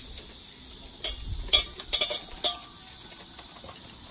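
A handful of sharp metal clinks from a pot lid and cookware, bunched about a second to two and a half seconds in, a couple ringing briefly, over a steady high drone of insects.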